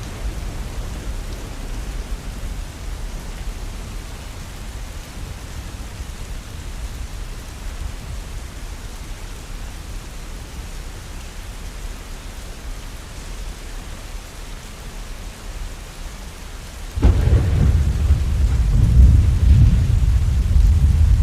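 Steady rain in a thunderstorm, with low thunder rumbling that eases off over the first half. About seventeen seconds in, a sudden thunderclap breaks and rolls on loudly.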